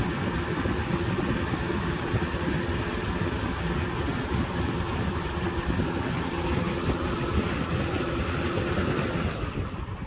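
1987 Dayton 20-inch box fan with a McMillan motor running: a steady rush of air with a constant motor hum, fading out near the end.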